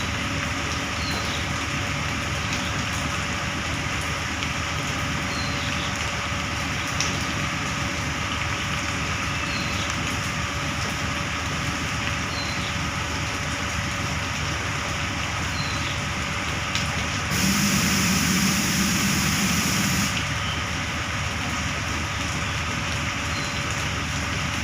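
Truck engine running steadily, with a louder hiss of about three seconds about two-thirds of the way through.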